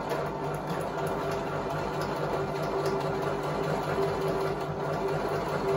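Janome electric sewing machine running steadily, stitching a quarter-inch seam through two layers of cotton patchwork fabric.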